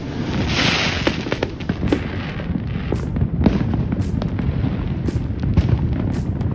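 Fireworks going off all around: many sharp pops and cracks over a continuous low rumble, with a short hissing rush about half a second in.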